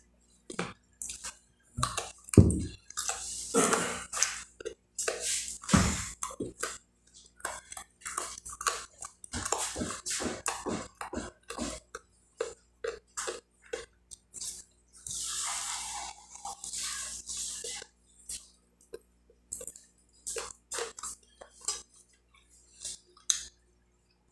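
Close-miked eating sounds of stewed chicken eaten by hand: quick wet lip smacks, chewing and sucking meat off the bones. Two louder knocks come about 2.5 and 6 seconds in, and there is a longer hissy suck around 15 seconds in.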